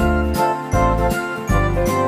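Instrumental background music: a melody of sustained notes over a moving bass line with a steady beat.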